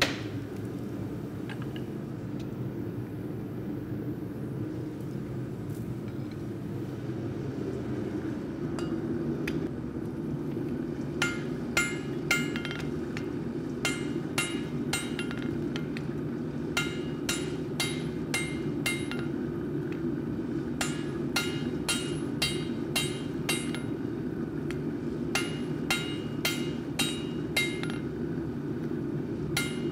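Hand hammer striking red-hot rail steel on an anvil in runs of blows that start about a third of the way in, each blow ringing. A forge's steady low roar runs underneath throughout.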